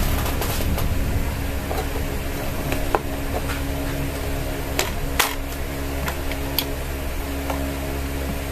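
A few sharp clicks and taps from the visors of an AXK full-face motorcycle helmet being handled and flipped up. The loudest come as a close pair about five seconds in, over a steady low hum.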